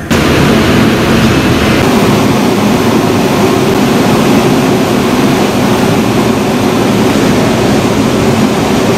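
Indian Railways locomotive standing at a platform, its machinery running with a loud, steady drone that starts abruptly.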